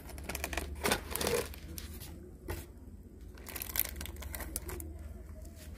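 Cardboard box lid and flaps being opened and handled: short bursts of scraping and rustling, the loudest about a second in and again near four seconds, over a steady low hum.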